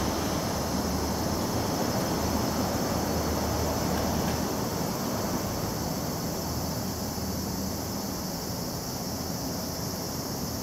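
Steady outdoor background noise: a continuous low hum with an even hiss over it and no distinct events.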